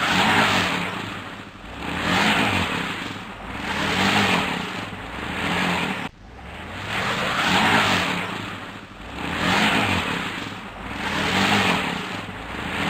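Truck engine revving hard in repeated surges about every two seconds while its wheels spin in mud, stuck and trying to pull free. The sound breaks off sharply about six seconds in and the same run of surges starts again.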